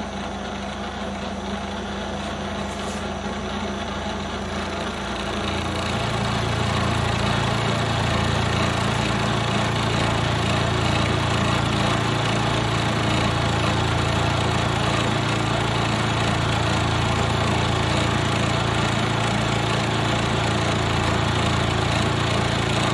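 Bridgeport milling machine spindle turning a reground three-quarter-inch end mill that is cutting an aluminium block at a slow finishing feed. The sound gets louder about five seconds in as the cutter takes up the cut, then holds steady.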